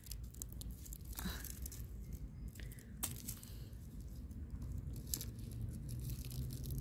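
Dry, spiky hazelnut husks and dead leaves crackling and rustling faintly as a hand handles and picks through them on the ground, with a few light clicks.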